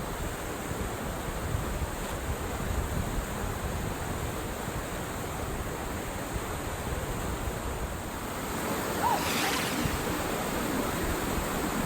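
Steady rushing noise of a waterfall, an even roar of falling water.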